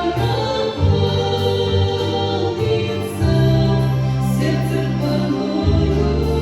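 Organ playing a hymn tune in slow, held chords, the bass note changing every second or two.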